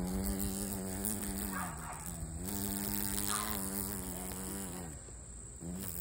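Cicada killer wasp buzzing its wings in bouts while it struggles to lift a cicada it has caught. The low buzz breaks off briefly about two seconds in, stops again a little before five seconds, and starts up once more near the end.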